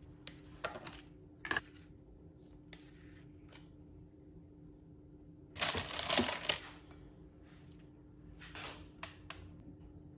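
Kitchen handling sounds: scattered light clicks and knocks, and a louder scrape or rustle lasting about a second some six seconds in, over a steady low appliance hum.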